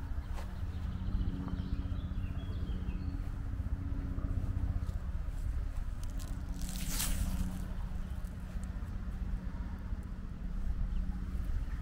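Outdoor ambience: wind rumbling on the microphone under a steady low hum, with a few faint bird chirps in the first few seconds and a brief hiss about seven seconds in.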